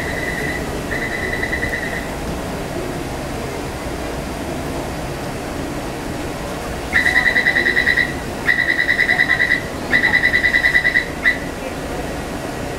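Taipei Metro door-closing warning beeps: a high, rapidly pulsing electronic beep in bursts of about a second. One burst ends about two seconds in, and three more follow with short gaps from about seven seconds in, over the steady low rumble of a metro train standing at the platform.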